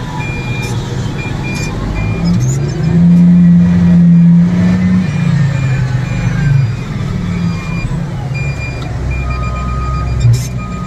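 Heavy diesel engine of mining machinery running, swelling loudest for a couple of seconds about three seconds in, with a faint broken high beeping over it.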